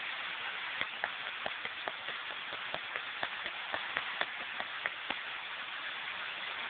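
Steady rush of a waterfall, with a run of about a dozen sharp, irregular ticks from about a second in until about five seconds in.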